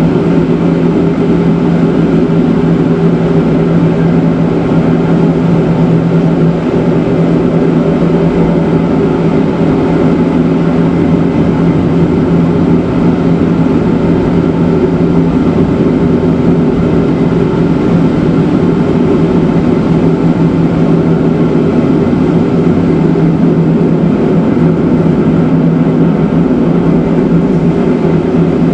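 Matterhorn Gotthard Bahn electric cog-railway train running on the rack section: a steady, loud drone of the drive motors and cogwheel gearing with rail noise, holding a constant pitch.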